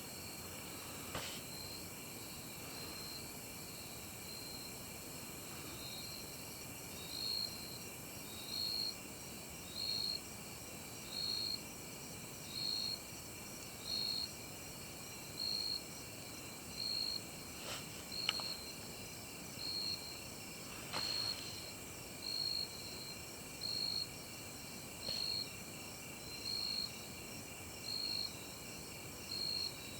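Night insect chorus, crickets: a steady high trill with one chirp repeating about every second and a half, growing louder after the first few seconds.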